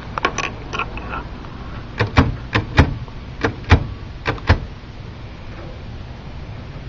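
LC Smith manual typewriter's mechanism clicking as its tab stops are cleared: a few soft clicks, then about eight sharp clicks, several in quick pairs.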